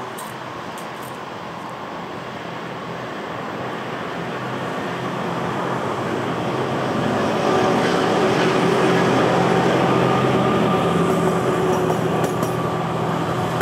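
A train running past on the line, its rolling noise swelling over the first half and then staying loud, with a steady hum under it. A few sharp clicks come near the end.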